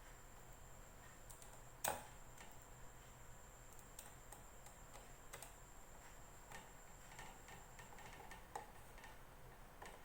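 Faint, scattered clicks and taps of small parts and screws being handled while a plastic bag sealer is put back together, with one sharper click about two seconds in.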